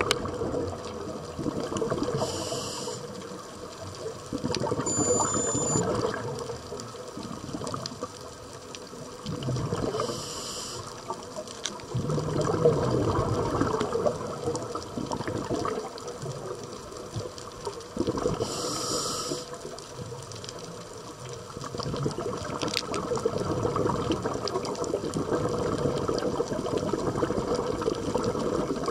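Underwater reef sound picked up by a camera under water: a steady rush of water dense with fine crackling. Three short hissing bursts come about eight seconds apart.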